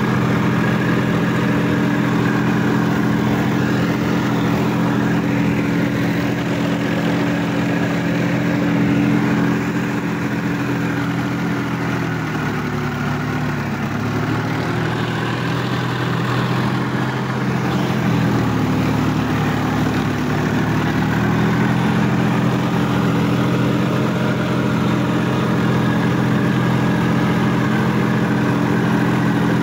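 Sonalika DI-50 RX tractor's diesel engine running steadily as the tractor pulls through deep paddy-field mud. Its engine speed drops for a couple of seconds about twelve seconds in, and again at around eighteen seconds, then picks back up each time.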